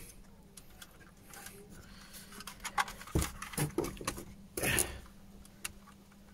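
Scattered plastic clicks, knocks and rustles of hands working a wiring connector loose from a BMW F30's overhead dome light unit, with a louder scrape about three-quarters of the way through.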